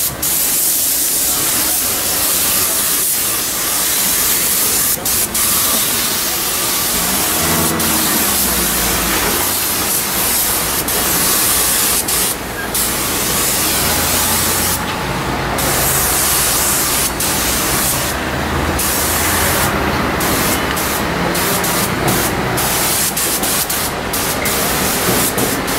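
Compressed-air paint spray gun hissing steadily as it lays the first coat of clear coat onto a plastic bumper. The hiss is cut by brief pauses as the trigger is let off, more often toward the end.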